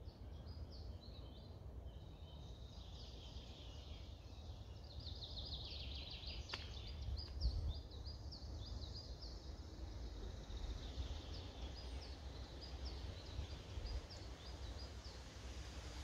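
Several forest songbirds singing, with repeated short high chirps and a quick run of descending trilled notes about five seconds in. A steady low rumble lies beneath, and there is a single thump about seven and a half seconds in.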